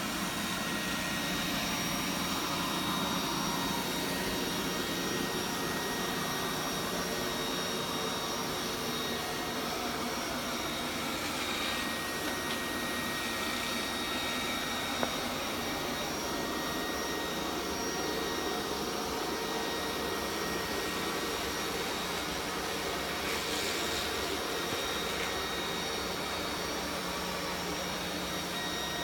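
Vorwerk Kobold VR200 robot vacuum running steadily: an even rushing noise with a thin, high, steady whine over it, and one small click about halfway through.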